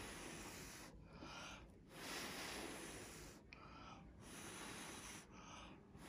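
A person blowing by mouth onto wet acrylic paint to push open a bloom: about four soft breaths out, with short pauses between them.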